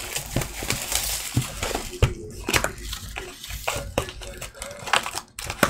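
Foil-wrapped Donruss Optic card packs and their cardboard box being handled: steady rustling with a few sharp taps and clicks.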